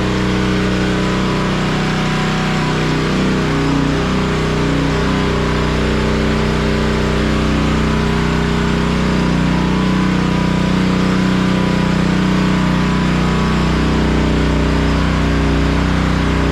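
Honda gas-engine pressure washer running steadily, its small engine humming under load, with a steady hiss of the water spray over it.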